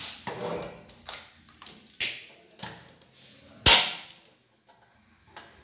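A single-burner gas stove being lit on biogas: two sharp clicks or pops about a second and a half apart, the second the louder, as the burner ignites. Fainter handling knocks come before them.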